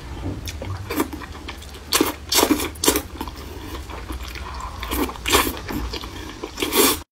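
Close-miked eating sounds: wide flat noodles in chili oil being slurped in and chewed wetly, in irregular bursts, the loudest about two to three seconds in and about five seconds in. The sound cuts off abruptly just before the end.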